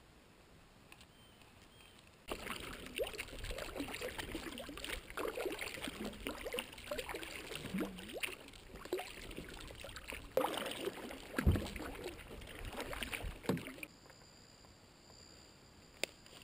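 A canoe being paddled: paddle strokes in the water with splashing, dripping and gurgling, and a few heavier thumps. It starts about two seconds in and cuts off suddenly near the end.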